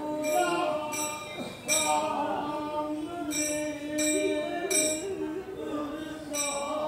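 Nat Sankirtan devotional singing: voices holding a slow chanted melody, with hand cymbals clashing in a steady rhythm about once or twice a second.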